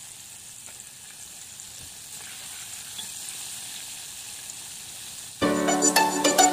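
Batter-coated squid rings deep-frying in hot oil: a steady sizzle and bubbling, during a first, half-way fry. Music comes in suddenly over it about five seconds in.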